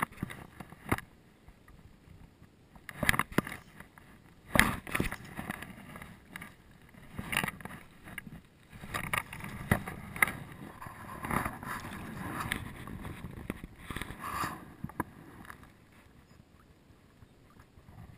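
Irregular splashes, sloshing water and knocks close to the microphone as a hooked brown trout is played and brought to hand in shallow water. The sounds die down over the last couple of seconds.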